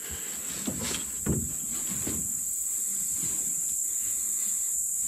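Steady high-pitched chorus of insects, with a few soft knocks in the first couple of seconds.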